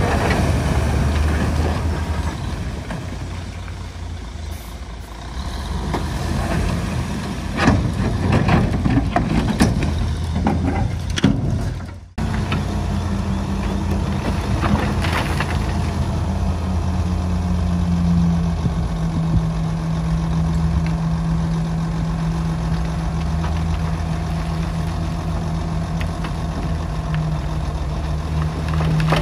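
Heavy diesel earthmoving machinery running, with scattered knocks and clanks in the first half. The sound drops out briefly about twelve seconds in, then a steady engine drone follows that settles slightly lower in pitch.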